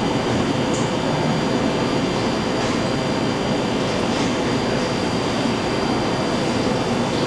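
Steady, even mechanical hum and rush, like a fan or motor running, with a few faint light clicks.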